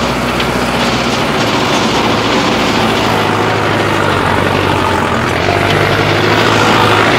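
Mahindra Arjun Novo 605 DI turbo tractor's diesel engine running steadily while the tractor works hard, compacted ground in four-wheel drive, growing slightly louder near the end.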